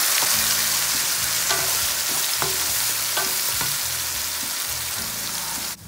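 Onion, garlic, ginger and green chilli paste sizzling as it fries in hot oil in a pan, with a spatula scraping through it as it is stirred. The sizzle fades gradually and cuts off suddenly near the end.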